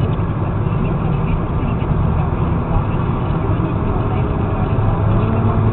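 Steady drone of a car's engine and tyre noise, heard from inside the cabin of the moving car.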